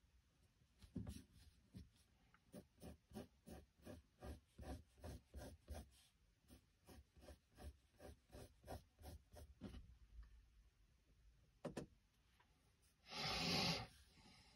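Pencil sketching on a sketchbook page: faint short scratchy strokes, about three a second, with a brief pause partway through, then a louder rough rub of under a second near the end.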